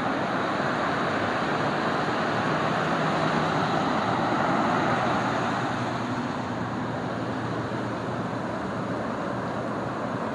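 Ocean surf washing onto the beach as a steady hiss that swells slightly, then eases off about six seconds in.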